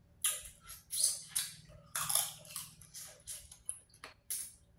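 Close crackling and crunching of boiled shellfish shells being peeled and eaten, in short irregular crunches a few tenths of a second apart.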